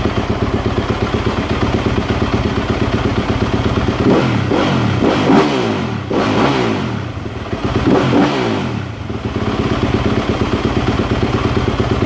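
2015 Yamaha YZ250F's single-cylinder four-stroke engine idling warm, then revved with several quick throttle blips from about four seconds in, the revs rising and falling each time before settling back to idle. It is running well on a freshly rebuilt fuel pump, the cure for its hard starting, bogging and popping.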